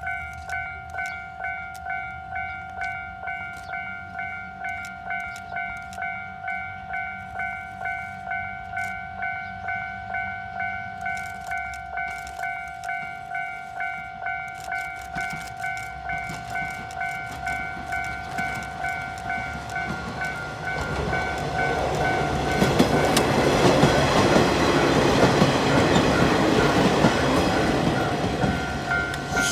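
Japanese level-crossing warning bell ringing in a steady repeating two-tone ding, about three strikes every two seconds. From about twenty seconds in, a diesel railcar runs over the crossing; its rumble and wheel noise swell loud for several seconds and partly cover the bell.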